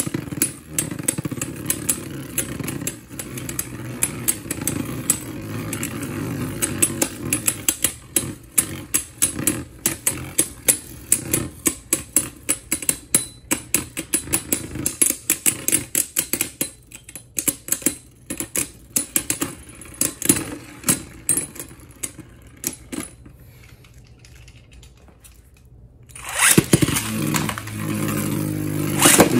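Two Beyblade spinning tops whirring on a plastic stadium floor and clacking against each other many times a second in rapid repeated collisions. The clashing thins out and grows quieter about three-quarters through. Near the end a louder whirr starts as a freshly launched top spins up.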